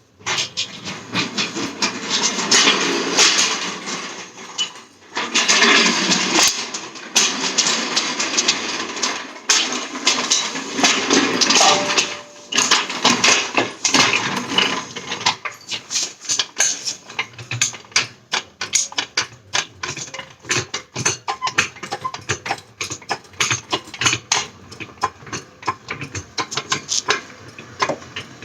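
Hand tools at work on the car: noisy stretches of working sounds for about the first half, then a long run of rapid clicks and knocks.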